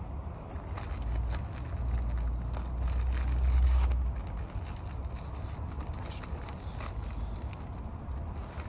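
Crunchy eating: bites and chewing of fried food from a mixed-fry bento, with scattered small crackles. Under it a low rumble swells in the first half and fades again.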